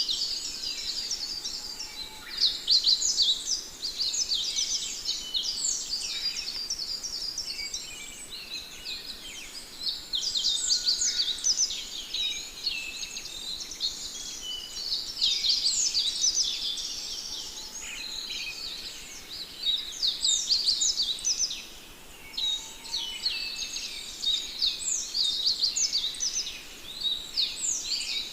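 A flock of sparrows chirping continuously, many short high chirps overlapping, swelling and easing every few seconds.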